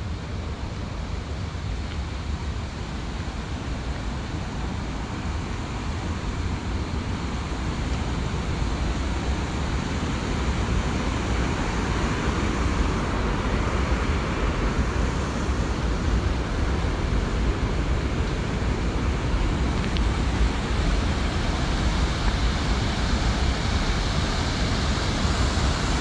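Outdoor ambience: a steady rushing noise over a low rumble, slowly growing louder.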